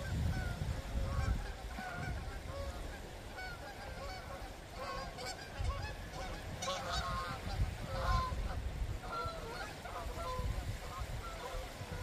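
Wind gusting against the microphone at a lakeshore, with small waves lapping on the gravel beach. Through the middle, waterfowl give many short, repeated calls.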